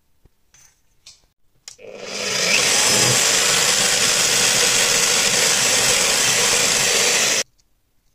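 Bosch drill press running and drilling into a black micarta knife-handle block: a steady, loud machine noise that builds up about two seconds in and stops abruptly about five seconds later.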